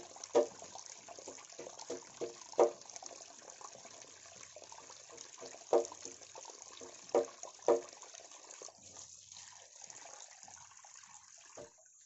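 Water running steadily from a garden hose while eels are washed by hand in a plastic basket, with five short, louder sounds from the eels being handled. The running water fades out near the end.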